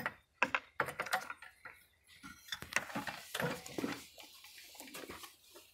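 Light clicks and knocks of metal fittings being handled as an angle grinder that is not running is freed from its bent steel clamp on a wooden arm, followed in the middle by a longer rustling scrape as the grinder is worked loose and lifted off.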